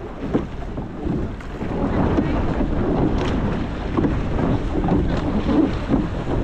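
Wind buffeting the microphone over water rushing along the hull of a racing rowing shell under way, with scattered knocks from the boat.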